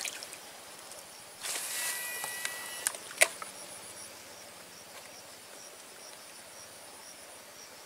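A cast with a Shimano Curado DC baitcasting reel: line pays out for about a second and a half with the reel's electronic brake whining, then a sharp click. Insects chirp steadily and high in the background.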